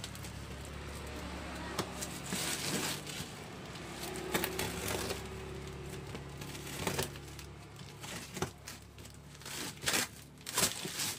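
Packaging crinkling and rustling as items are handled and unwrapped, with scattered sharp clicks and knocks.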